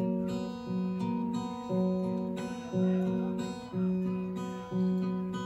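Acoustic guitar strumming the opening chords of a song, one strum about every second, each chord ringing and fading before the next.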